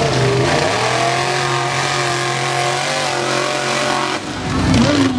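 Formula Offroad buggy's engine running hard at steady high revs as it climbs a steep dirt slope. About four seconds in, the engine note breaks off suddenly as the buggy tips over.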